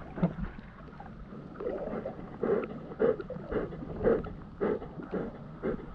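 River water splashing and sloshing in a steady rhythm, about two splashes a second.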